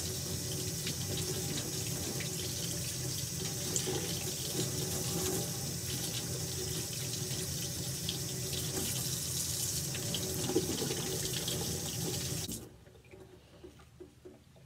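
Kitchen tap running into a stainless steel sink, the stream splashing over gloved hands as they rinse a pipe-cleaner ball. The tap is turned off about twelve and a half seconds in.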